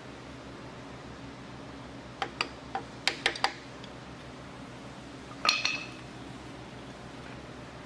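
Metal parts and tools being handled during engine assembly: a few light clicks and clinks between about two and three and a half seconds in, then one louder, ringing metal clink about five and a half seconds in, over a steady low hum.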